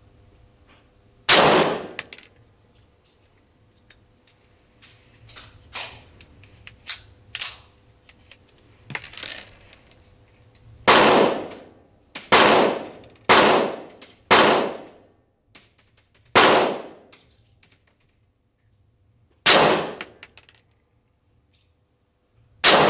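Pistol shots, eight loud cracks each with a short ringing echo: one about a second in, a run of five at roughly one-second spacing from about eleven seconds on, then two more spaced a few seconds apart near the end. A few fainter cracks come in between.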